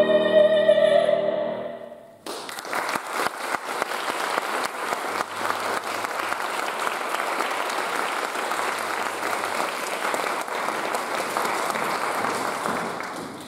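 A mezzo-soprano's final sustained note with piano ends about two seconds in, and the audience breaks into steady applause that fades out near the end.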